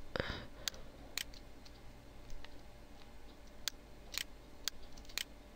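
Faint clicks of a computer mouse, about eight spread unevenly and several coming about half a second apart, over a low steady room hiss.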